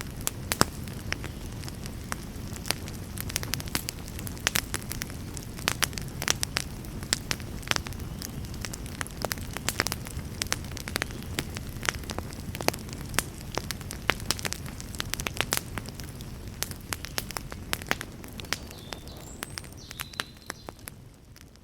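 Wood fire burning in a fireplace: frequent sharp crackles and pops over a low steady rumble, fading out near the end.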